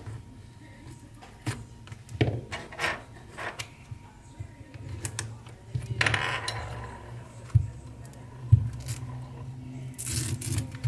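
Small repair tools clicking and tapping against a phone being opened, with two short scraping bursts about six and ten seconds in, over a low steady hum.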